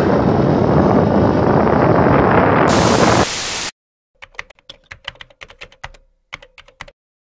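Loud rushing wind and road noise of a ride. About two and a half seconds in it gives way to a second of flat static hiss that cuts off suddenly. After a short silence comes a run of computer keyboard typing clicks, a sound effect for text being typed out on screen.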